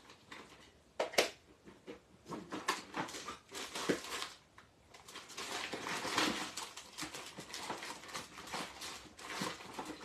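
Hands rummaging through craft supplies on a desk while looking for a waterproof black ink pad: a string of irregular clicks, light knocks and rustling, with one sharp click about a second in and busier clattering from about halfway through.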